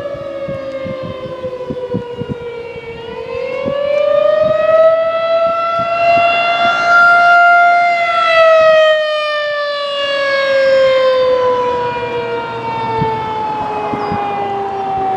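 Federal Signal 2001-SRN electromechanical outdoor warning siren sounding the attack signal. Its pitch sinks, climbs over about two seconds to a high held note, then slides slowly down again in a loud wavering wail.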